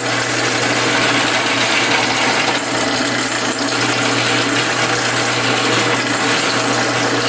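Drill press running steadily with a constant low hum, its oiled twist bit cutting through a metal gas-strut bracket to drill out the bracket's top hole.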